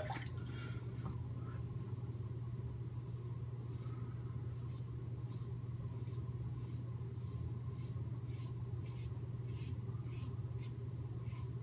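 Merkur 37 slant-bar safety razor with an Astra blade scraping through lathered stubble on the neck: short rasping strokes, about two a second, starting about three seconds in. A steady low hum runs underneath.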